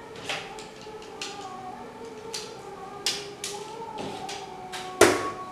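A series of irregular clicks and knocks from a pellet air rifle being handled, its metal parts and action being worked by hand. The loudest knock comes about five seconds in.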